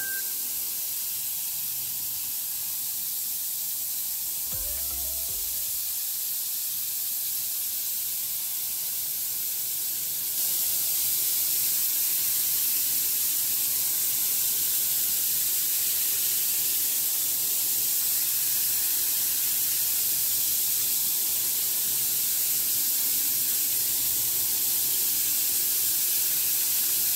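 Steady hiss of a hose-fed spray nozzle misting melon plants, fed by an electric power sprayer. It gets louder about ten seconds in.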